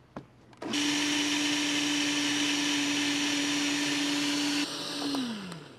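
Countertop blender puréeing a carrot and ginger soup: a click, then the motor starts a little over half a second in and runs at a steady speed with a constant hum. Near the end it switches off and winds down with a falling pitch.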